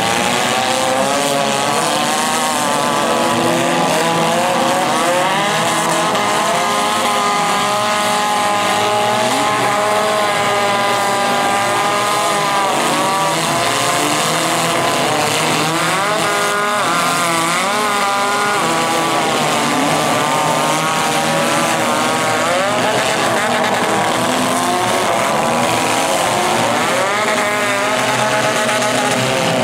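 Engines of several demolition derby cars revving hard at once, their pitches rising and falling as they push and ram through the mud.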